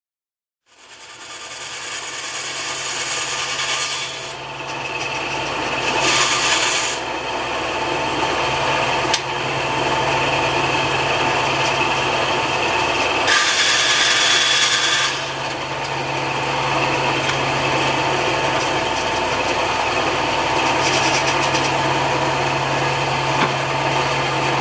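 Bandsaw starting up about a second in and running with a steady motor hum while its blade cuts wood with a rasping noise. The cutting gets louder and harsher twice, briefly about six seconds in and for about two seconds in the middle.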